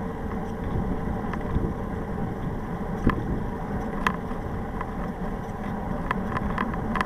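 Steady wind rush on a bike-mounted camera's microphone with tyre noise from a tandem bicycle rolling along asphalt at speed. A few short, sharp clicks break through, the loudest about three and four seconds in.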